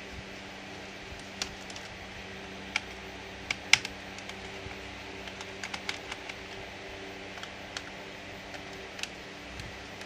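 Scattered light clicks and taps, as small hard plastic parts of a laptop are handled, irregular and a few seconds apart, the sharpest about a third of the way in. Under them runs a steady low electrical hum.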